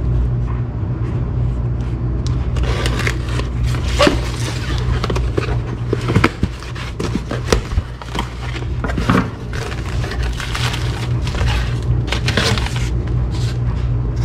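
A cardboard shipping box being cut open with a folding utility knife and its flaps pulled back: scrapes, rustles and small knocks, over a steady low hum.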